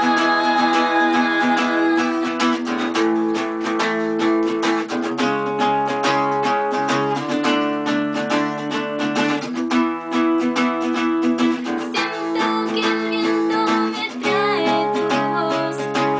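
Acoustic guitar strummed in a steady rhythm through changing chords, an instrumental stretch of an acoustic song, with a voice singing briefly near the start and again near the end.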